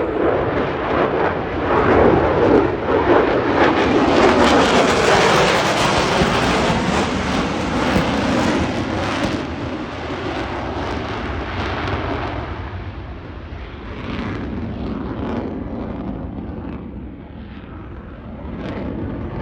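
F-35 fighter jet passing overhead in an airshow flyby. Its engine noise builds to a loud peak a few seconds in, then fades as it moves away, with a ragged crackle in the later seconds.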